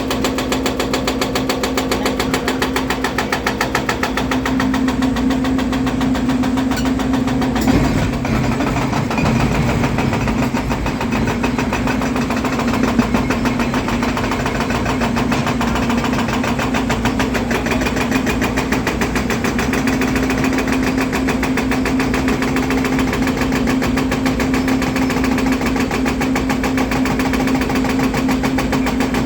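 Volvo EC300DL excavator's diesel engine running at a steady speed with a constant drone, and a single brief knock about eight seconds in.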